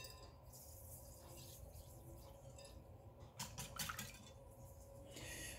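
Faint wire whisk stirring a milk-and-egg mixture in a glass bowl, with light ticks of the wires against the glass about three and a half seconds in and a sharper click at the very start.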